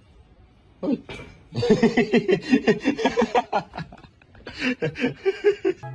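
A person laughing: a short burst, then a long run of rapid laughter pulses and a second shorter fit near the end.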